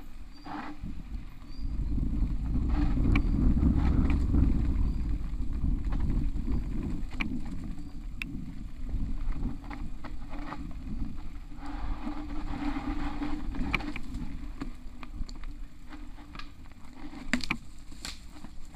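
Downhill mountain bike running fast over a rough dirt trail, heard from a camera on the bike or rider: a steady low rumble of wind and tyres, loudest a couple of seconds in, with scattered sharp knocks and rattles from the bike over bumps and roots.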